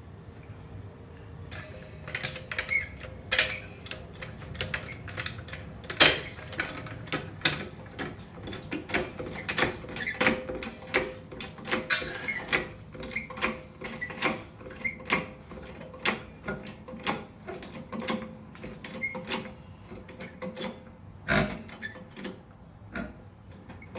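Car jack being worked to lift a wheel off the ground, giving a run of sharp mechanical clicks and knocks, about one to two a second, with one louder knock about six seconds in.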